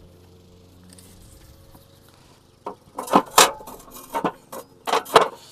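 Metal clanking as a grill grate and griddle plate are handled and set into a Napoleon TravelQ PRO285X portable gas grill. A faint steady hum at first, then a quick run of about ten sharp knocks with brief ringing from about halfway through.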